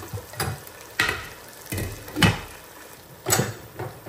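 A cooking spoon stirring food in a pot on the stove: about five sharp scrapes and knocks of the spoon against the pot.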